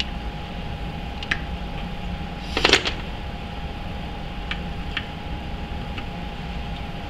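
Hand reamer being worked in a steel plate held in a vise: faint metal ticks and one ringing metal clink about two and a half seconds in, over a steady shop hum with a faint whine.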